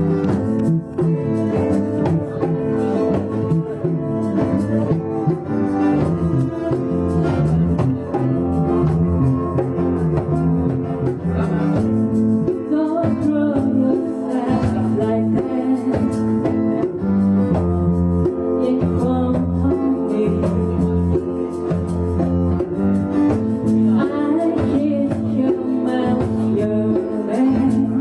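Music: an instrumental passage of a song, led by guitar over a steady bass line.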